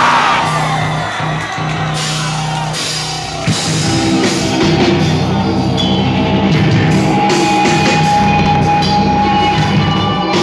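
Rock band playing live with a drum kit, music without singing at the start of the song.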